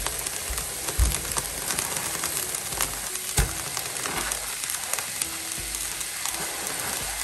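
Green beans sizzling and crackling in a hot frying pan as handfuls of shredded cabbage are dropped in. Two dull thumps come about a second in and about three seconds later.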